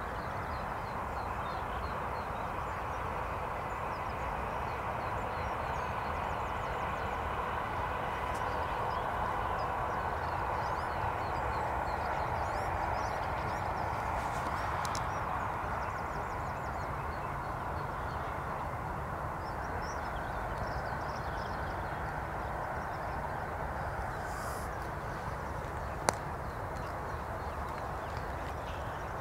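Steady outdoor background rush, slightly louder around the middle, with faint high chirps scattered through it and a single sharp click near the end.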